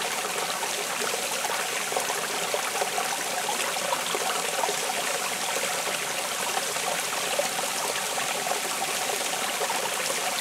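Shallow rocky stream trickling and splashing over stones, a steady babble of running water.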